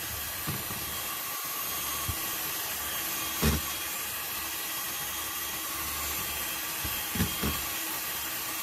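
Electric hand mixer running steadily, its beaters whipping thickened cream on the way to butter. A few short knocks stand out, one about three and a half seconds in and two close together near the end.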